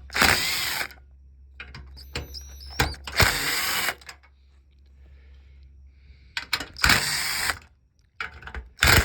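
Cordless drill-driver running in four short bursts, each under a second, driving screws in or out of the dishwasher door's hinge.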